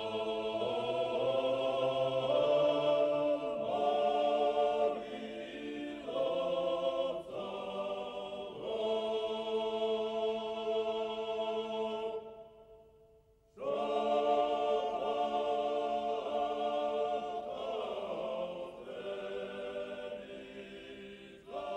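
A choir singing slow, sustained chords, the voices breaking off briefly a little past the middle before the chant resumes.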